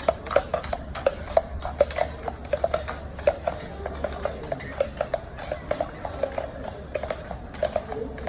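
Horse's hooves clip-clopping in a steady, even rhythm of about three to four strikes a second.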